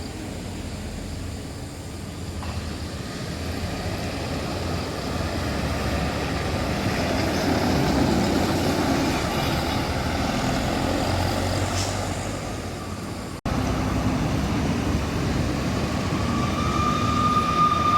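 Road traffic: a large vehicle's engine and tyres pass by, growing louder to a peak about halfway through and then fading. After an abrupt cut, another vehicle approaches, with a steady high-pitched whine over its engine near the end.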